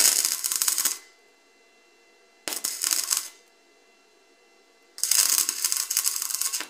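Stick (arc) welding: three short bursts of the electrode arc crackling and sizzling as plug welds are laid through drilled holes in a steel flat bar. The first burst lasts about a second, the second is shorter, and the third runs almost two seconds and stops near the end.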